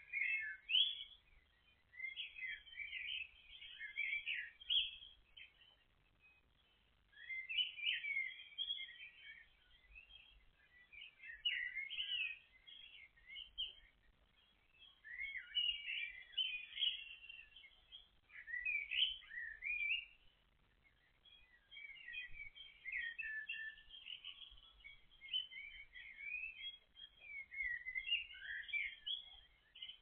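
Small songbirds singing and chirping, high and busy, in spells of a few seconds with short pauses between.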